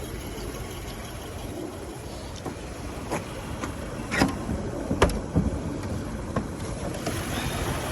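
A few short knocks and clicks from handling things in a car's open trunk, over a steady low rumble.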